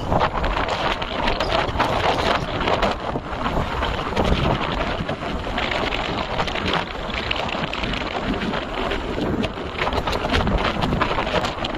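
Wind buffeting the microphone of a moving motorbike, a steady rushing with rapid flutter over the faint running noise of the ride.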